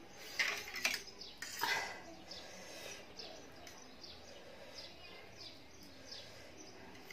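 A few sharp clicks of a fork and spoon against a tray in the first two seconds as fried instant ramen noodles are twirled, then faint eating and utensil sounds with light high chirps in the background.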